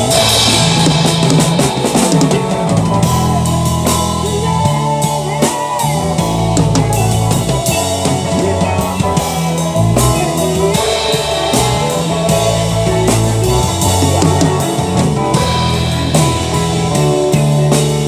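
Live rock band playing an instrumental passage: drum kit with frequent cymbal hits over a steady bass line and guitar.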